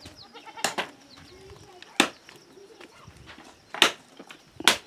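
A hand blade chopping firewood branches: four sharp, irregularly spaced strikes into the wood.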